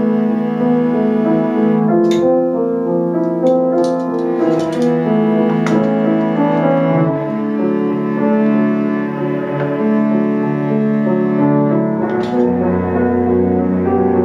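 Cello and piano playing a slow classical duet, with long bowed cello notes held over piano chords. Lower notes come in about two seconds before the end.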